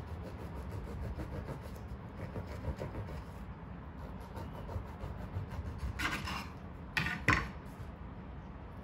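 Serrated bread knife sawing back and forth through a bagel, its teeth rasping on the crust. Near the end come two louder, sharper scrapes about a second apart.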